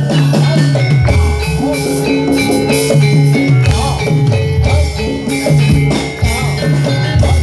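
Live jaranan campursari music: a Javanese ensemble with struck metallophones playing a stepping melody over steady drumming.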